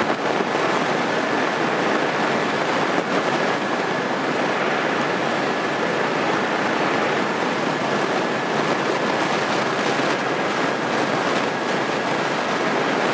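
Cabin noise of a Grumman light aircraft's piston engine idling on the ground, heard as a steady rushing noise with a faint high whine held throughout.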